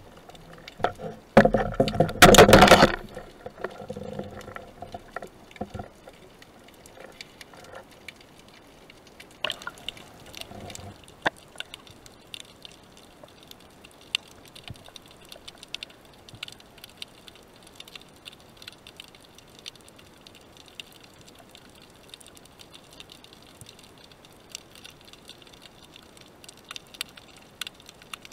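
Underwater sound picked up by a camera in its housing: a loud rush of moving water about two seconds in and a smaller one about ten seconds in, over a steady scatter of faint crackling clicks.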